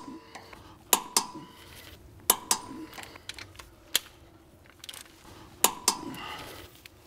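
Click-type torque wrench breaking over at its set torque, giving several sharp metallic clicks, mostly in pairs, as the 13 mm torque-rod bolts reach 80 N·m.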